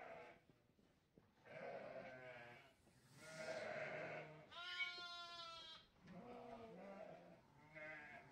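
Sheep bleating: a series of separate calls one after another, the loudest and highest-pitched about five seconds in.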